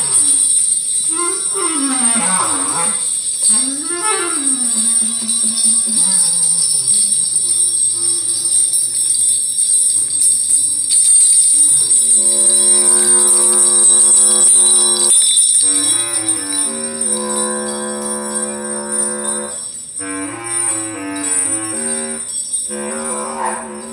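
Improvised live music: a pitched line swoops up and down in wavering glides for the first few seconds, then settles into long held notes broken by short pauses. A constant jingling of small bells runs underneath.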